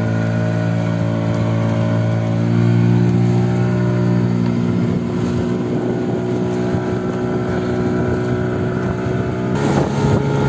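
Small wooden passenger boat's motor running steadily under way, its pitch stepping up a little about two and a half seconds in. Near the end the engine tone gives way to a rougher rush of water and wind.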